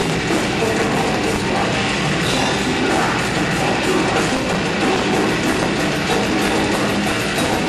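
Live heavy metal band playing loud: distorted electric guitars over a drum kit, dense and unbroken.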